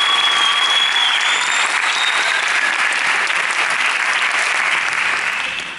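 Audience applauding, with a high whistle over it in the first second or so; the applause dies away near the end.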